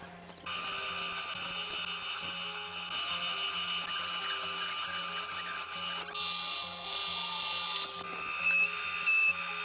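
Electric drill running with a steady high whine while drilling holes in mild steel angle. The whine changes abruptly about six seconds in and again about eight seconds in.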